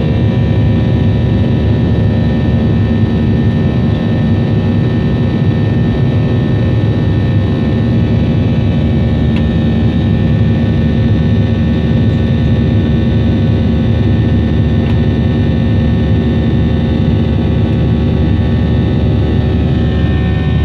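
Boeing 737-500 jet engines and airflow heard from inside the passenger cabin as a loud, steady drone. Several even engine tones sit over a deep rumble, with no change in pitch or level.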